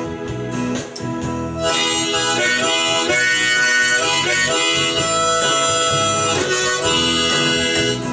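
Strummed acoustic guitar, joined about 1.7 s in by a harmonica held in a neck rack and played hands-free, its sustained chords and melody over the guitar.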